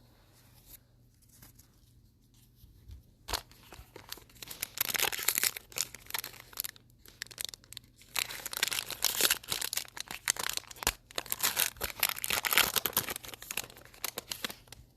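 A trading-card pack wrapper being torn open and crinkled by hand. There is a single click about three seconds in, then a short bout of tearing and rustling, and a longer one from about eight seconds.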